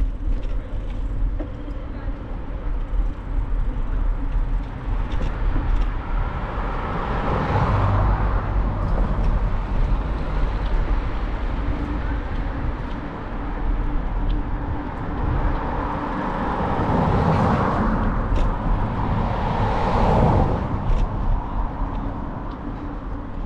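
Urban street traffic: motor vehicles passing, one swelling and fading about seven seconds in and a longer pass or two between about sixteen and twenty seconds, over a steady low rumble.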